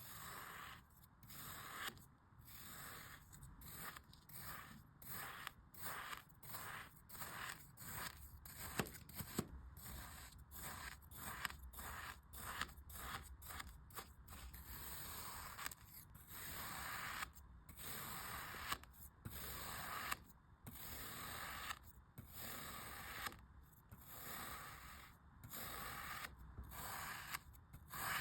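Packed sand being cut, a gritty scraping in repeated strokes about a second apart with short pauses between, the strokes growing longer in the second half.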